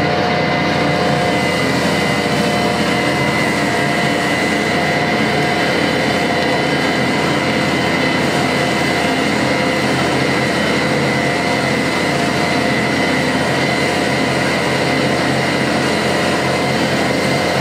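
Tractor engine running steadily under load, pulling a field cultivator, with a steady high whine over it.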